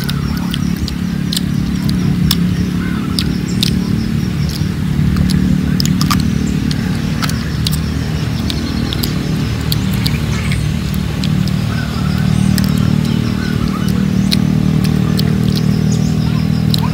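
Crisp bites and chewing of firm young fruit, heard as many short sharp crunches scattered throughout, over a steady low engine hum.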